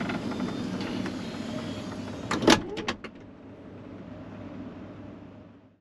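Minivan's power sliding door motoring closed, then latching shut with a quick cluster of clunks about two and a half seconds in.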